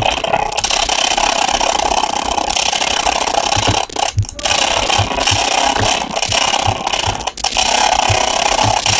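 Audio output of a Simulink sound-effects simulation: a dense, steady rattling noise with short low thuds repeating about two to three times a second, dipping briefly twice.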